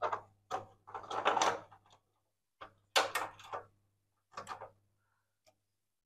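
Handling noise from work on the bench: about six short, irregular bursts of clattering and knocking, the busiest in the first half.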